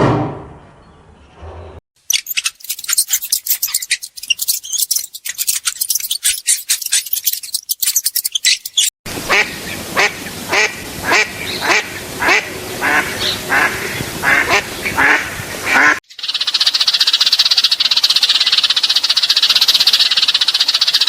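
A duck quacking in a steady run of about two quacks a second, between a stretch of rapid crackling clicks before it and a steady high-pitched buzz after it.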